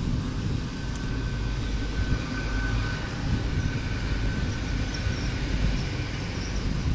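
GWR Class 800 Intercity Express train moving along the platform: a steady low rumble with a faint high whine over the first few seconds.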